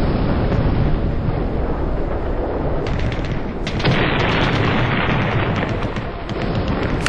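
Simulated battle sound effects: the deep rumble of an artillery explosion dies away, crackling sets in about three seconds in, and a second blast follows about a second later with a long rumbling tail.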